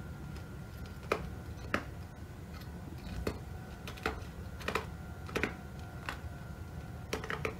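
A series of light, sharp clicks at irregular spacing, roughly one a second, with three in quick succession near the end, over a steady low hum.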